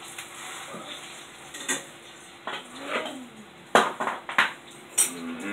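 Metal pots, pans and utensils clinking and clattering at the stove, with several sharp knocks, the loudest a little past the middle.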